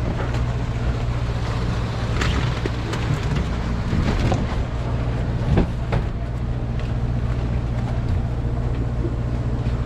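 Fishing boat's engine running with a steady low hum, with a few clunks from crab traps being stacked on deck.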